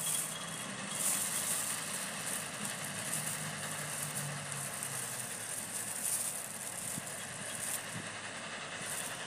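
Thin plastic bag rustling and crinkling in brief bursts as worm bait is picked out of it, over a faint steady low engine hum.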